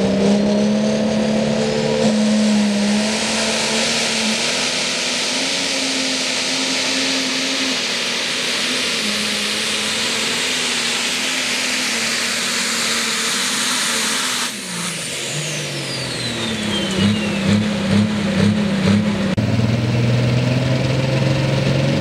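Modified diesel pulling tractor under full power dragging the weight sled, a loud steady run with a high hissing whine over the engine, ending in a falling whistle as it winds down about 15 s in. Another pulling tractor then revs in four or five short blips and settles to a steady idle near the end.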